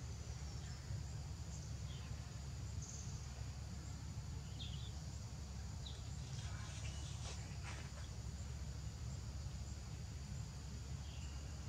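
Outdoor forest ambience: a steady high insect drone over a low rumble, with a few short bird chirps and a brief patch of clicking about seven seconds in.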